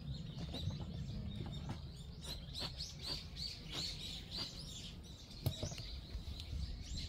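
A small bird chirping, a run of short repeated notes about three a second, with a single sharp click about five and a half seconds in.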